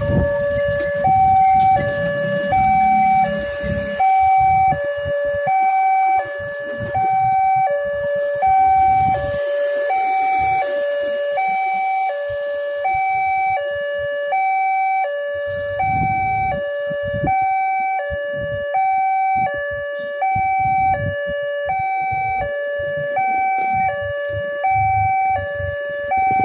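Railway level-crossing warning alarm sounding its electronic two-tone chime, a lower and a higher note alternating about once a second without a break, the signal that a train is approaching and the barriers are down. Road vehicle engines rumble underneath at times.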